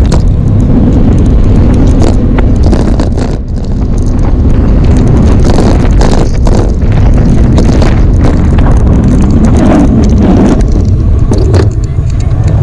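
Wind buffeting the microphone over the rumble of a bicycle being ridden, with frequent short knocks and rattles.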